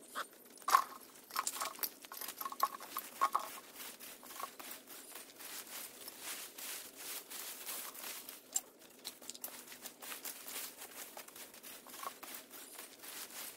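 Dense, irregular rustling and crackling of dry vegetation and debris being worked by hand, with a few brief higher-pitched sounds in the first few seconds.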